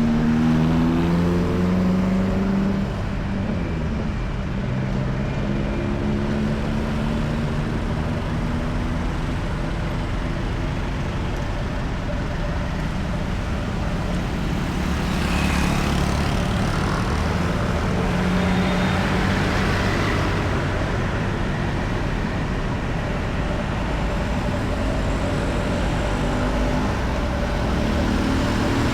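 Busy city-road traffic of cars and motorcycles: a continuous engine hum and tyre noise, with engine notes shifting in the first few seconds and a couple of louder vehicles passing near the middle.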